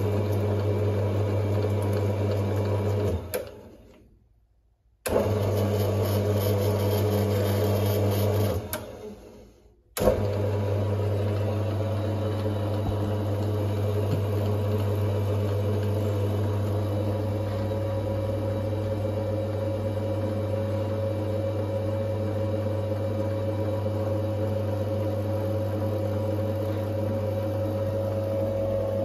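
Emco Compact 8 lathe running with no load, its single-phase motor and spindle drive giving a steady hum. It is switched off twice, each time running down to silence within a second or two, and restarts about 5 and 10 seconds in before running on steadily.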